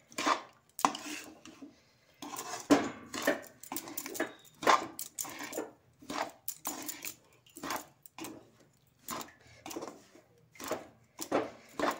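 Metal spatula scraping and knocking against a metal pan as a dry, crumbly mawa, sugar and semolina mixture is stirred, in quick repeated strokes about two a second, with a brief pause about two seconds in.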